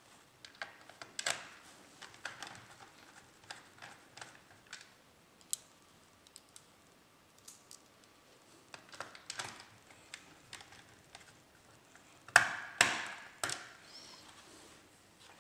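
Small clicks, taps and scrapes of a screw, a small screwdriver and the plastic underside of an HP Pavilion laptop being handled during reassembly, with three louder knocks near the end.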